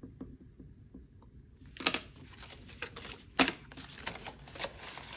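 Paper money and a cash-envelope binder being handled: soft rustling and small taps, with two sharp clicks about two and three and a half seconds in. The first second and a half is quieter, with faint pen-on-paper sounds.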